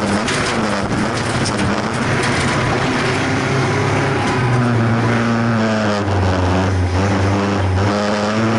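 Folkrace car's engine heard from inside the stripped cabin, revving hard under racing load, its pitch climbing and dropping back several times as the driver accelerates, lifts and shifts. Scattered sharp clicks and rattles come from the track surface and the bare body, most near the start and the end.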